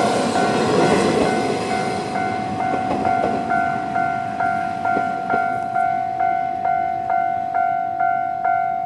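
Japanese level-crossing alarm ringing in its normal electronic bell tone, repeating at a little over two strikes a second. A Kantō Railway KiHa 2200-class diesel railcar rumbles past at the start and fades out by about three seconds in, leaving the alarm alone.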